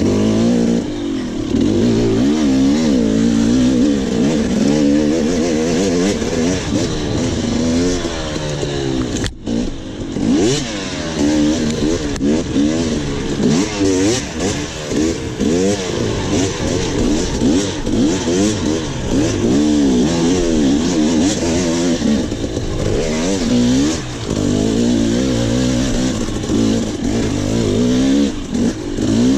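Onboard sound of an enduro dirt bike's engine at race pace, its pitch rising and falling constantly as the throttle is opened and shut, over rushing noise. The sound drops out briefly about nine seconds in.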